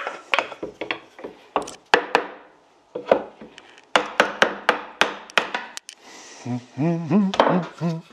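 Repeated sharp taps of a mallet on the edge of a glued, clamped cabinet carcass panel, knocking a joint that is not flush into line, in two quick runs. A short pitched sound follows near the end.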